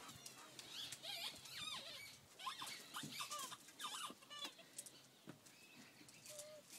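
German Shepherd puppies, about seven weeks old, giving many short, high squeaks and whimpers as they play, mostly in the first four seconds, with light scuffling among them.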